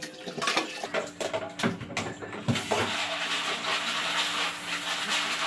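Tap water running into a plastic colander of beans being rinsed in a stainless steel sink, with a few knocks and rattles of the beans and colander in the first three seconds, then a steady rush of water.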